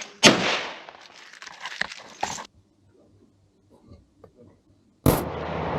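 A loud rifle shot with a short echo dying away, followed by a couple of smaller knocks. After about two and a half seconds of almost nothing, a second loud report comes near the end.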